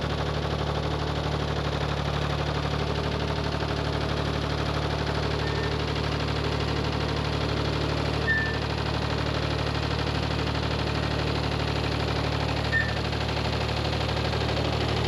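Tractor engine running steadily with a fast, even pulse, with two brief clicks about eight and thirteen seconds in.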